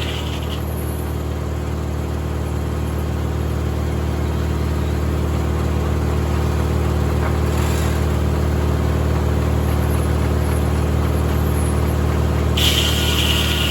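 Tractor engine running steadily to power a 1950 Corley circular sawmill, growing slightly louder; near the end a loud, high hiss comes in over it.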